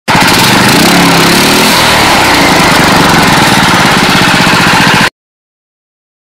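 Small petrol engine running loudly, its pitch briefly rising and falling about a second in, then cutting off suddenly after about five seconds.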